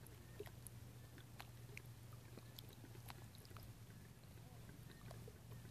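Near silence at the water's edge: a faint steady low hum with a few scattered faint ticks.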